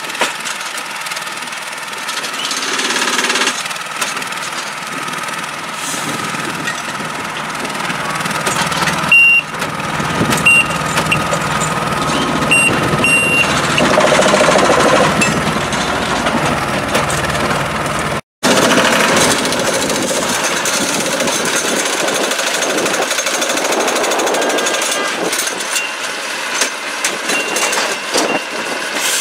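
Rail-mounted track maintenance machine running, with rapid rattling hammering from the tie-gang's track tools. Brief high beeps come in about ten seconds in.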